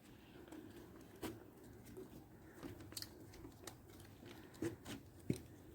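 Faint, irregular light clicks and crunches, about half a dozen scattered over a few seconds, over a low steady hiss.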